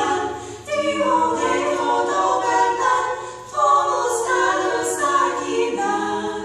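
Three women singing a cappella in harmony as an Eastern European vocal trio, with short breaks between phrases about half a second in and again around three and a half seconds in.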